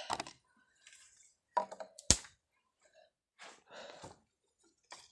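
Steel vacuum flask being handled as its cup comes off and its stopper is unscrewed. Scattered knocks and clicks, with one sharp click about two seconds in and a short hissing rustle later.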